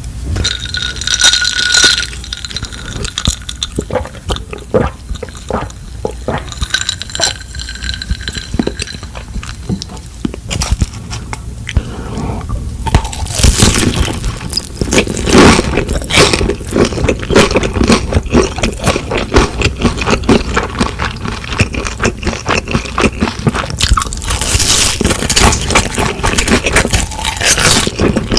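Eating utensils scraping and clicking against a bowl of food, with a few brief ringing clinks in the first ten seconds and denser, louder scraping from about thirteen seconds in.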